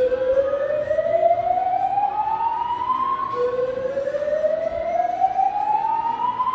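Hotel emergency alarm sounding its alert tone over the building's speakers: two rising whoops, each sweeping upward for about three seconds. It is the building's early alert signal, not yet a call to evacuate.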